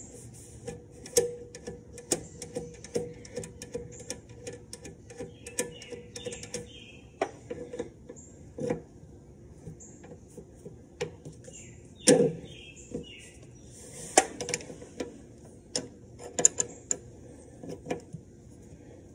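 Irregular metal clicks and clinks of a 12 mm wrench backing off a nut on a Can-Am Spyder RT's parking brake, part of releasing the stuck brake by hand.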